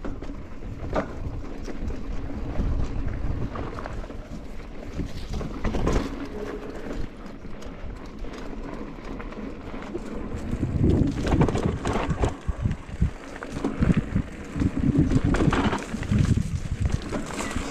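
Mountain bike riding over a rough dirt trail, a steady rumble of tyres and wind buffeting the microphone, broken by frequent sharp knocks and rattles from the bike over bumps. It gets rougher and louder in the second half.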